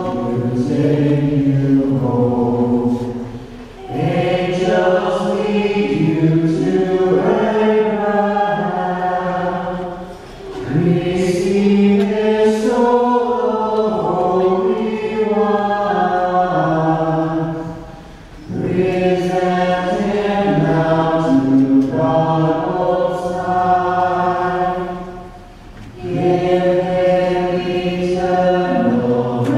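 A choir singing a slow, chant-like hymn in long sustained phrases, with a short break between phrases every six to eight seconds.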